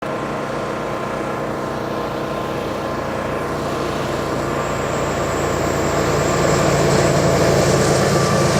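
Diesel freight locomotives (a GE ES44AC leading two EMD SD70M-2s) running under power as they approach, a steady engine drone and rumble growing louder, with a faint high whine joining about halfway through.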